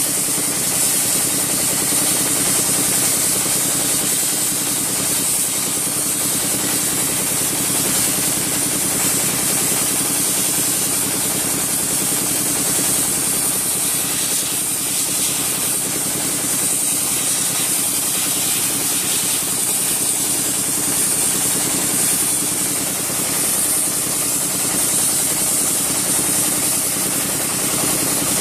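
Wet sandblasting machine in use: a steady high hiss of the water-and-sand jet from the blast nozzle striking steel, over a constant engine hum.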